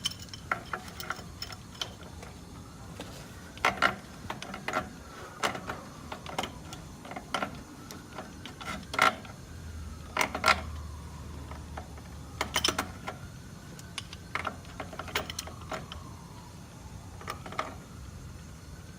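Wrench tightening the swivel nuts on a gas meter's pipe fittings: irregular metallic clicks and clanks of the tool working on the nuts.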